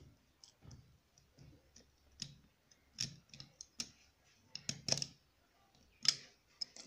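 Circlip pliers pushing a steel circlip (lock ring) along a Honda CD 70 kick shaft toward its groove: scattered small metal clicks and scrapes. The sharpest come about five and six seconds in.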